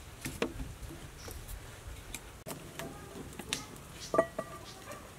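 Sticks of firewood crackling and popping in a wood-fired clay stove. About four seconds in, a nonstick frying pan is set down on the stove with a metallic clank that rings briefly, the loudest sound here.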